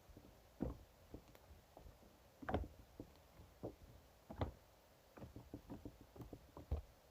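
Opaque slime being squished and poked by hand, making irregular soft pops and clicks, with a few louder pops among them.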